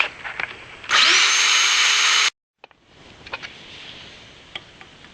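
Electric drill spinning up with a rising whine and cutting into aluminum for about a second and a half, then stopping suddenly. A few faint clicks and taps follow.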